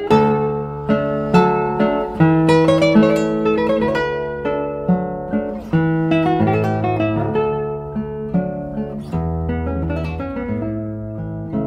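Background music of acoustic guitar, plucked notes and strums in a steady melodic pattern.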